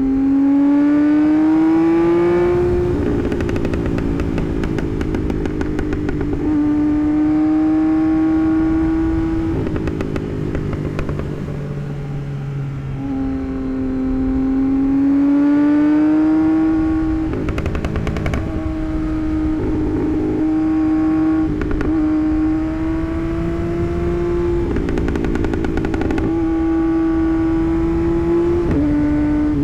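2024 Yamaha MT-09's 890 cc inline-three engine, with a Moore Mafia tune, running under way. The engine pitch rises several times and then holds steady for a few seconds at a time, broken by short rough, clattering stretches between the pulls.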